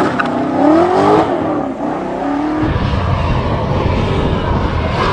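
A race-car 'vroom' sound: a tone that glides up and down in pitch for about two and a half seconds, then gives way to a low, rough rumble.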